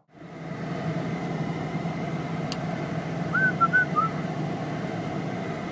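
A vehicle driving, heard from inside the cabin: a steady engine hum and road noise. About halfway through, a few short high chirps are heard.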